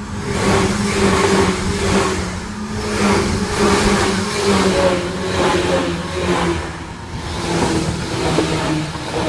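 Tokyu Den-en-toshi Line electric train passing close by at speed: wheel-on-rail noise swells and fades roughly every second as each car's wheels go by, over a steady hum from the traction motors that sinks slightly near the end.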